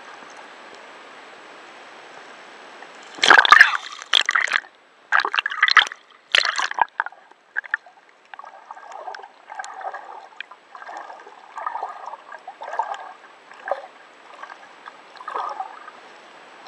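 Water sloshing and gurgling around an underwater camera. There is a steady hiss at first, a run of loud splashy surges from about three to seven seconds in, and softer uneven sloshes after that.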